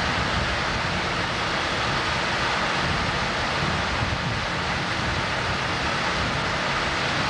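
Wind blowing across the camcorder microphone: a steady rushing noise with low buffeting rumble.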